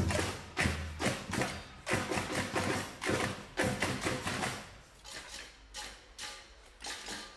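Music with a steady thumping beat, about one and a half beats a second, fainter in the second half.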